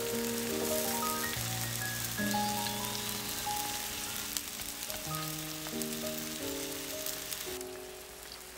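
Tofu and pond snails sizzling as they are stir-fried in an earthenware pot and stirred with a wooden spatula, over soft background music with long held notes. The sizzling stops near the end.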